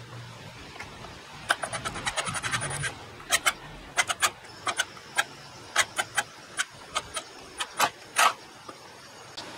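Countersunk screw being driven into a wooden leg rail with a hex driver bit, heard as sharp clicks. A quick run of clicks comes about one and a half seconds in, then about a dozen separate clicks at uneven intervals over the next five seconds.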